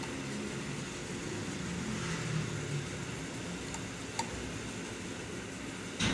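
Steady background hum and hiss, with a few faint metal clicks partway through and one sharp knock at the very end, from metal parts being handled and fitted by hand on an embroidery machine's main shaft.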